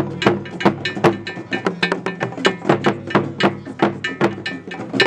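Music with a fast, steady percussion beat: sharp, woody clicking strikes about four to five a second over sustained pitched tones.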